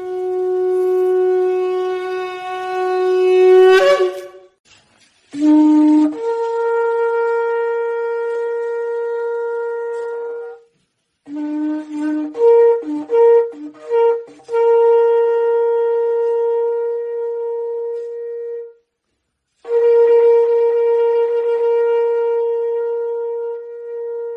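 Shofar (ram's horn) being blown: a long blast that ends with an upward break about four seconds in. Two more long steady blasts follow, each starting on a brief low note and jumping up to a held higher one. Between them comes a run of short, broken notes that alternate low and high before settling into a held note.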